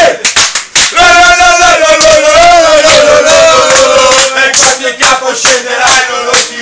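A group of male football supporters chanting together in unison, holding a long sung line that slowly falls in pitch, with sharp claps throughout.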